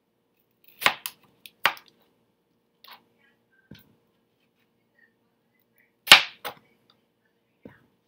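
Chef's knife cutting cantaloupe on a cutting board: sharp knocks as the blade comes down onto the board, two loud ones about a second in and around six seconds, each with a quick follow-up knock, and a few fainter taps between.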